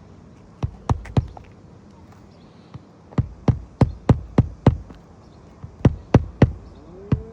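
Hammer blows driving roofing nails to refasten a shingle: a few strikes about a second in, a quick run of about six blows near the middle, then a few more near the end.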